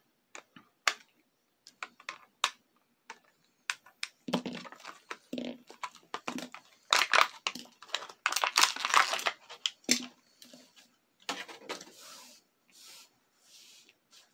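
Clear plastic toy packaging crinkling and tearing as the Beyblade parts are pulled free, with a run of sharp clicks in the first few seconds and the loudest crinkling from about four to ten seconds in.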